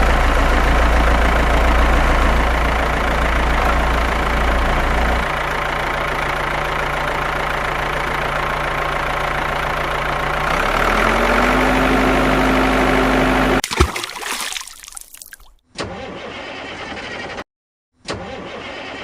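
Engine sound effect of a running vehicle, steady with a low hum, shifting in pitch about five seconds in and again near eleven seconds with a short rising tone. It cuts off suddenly near the end and gives way to short engine-sound snippets broken by dead silences.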